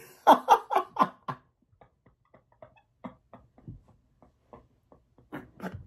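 A short burst of laughter, several quick pulses, followed by faint scattered taps and clicks.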